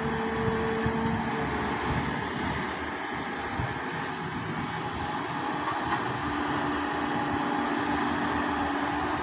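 Hydraulic excavator working: a steady engine drone with a whine over it that stops a second or so in and returns at a lower pitch about six seconds in, rising slightly.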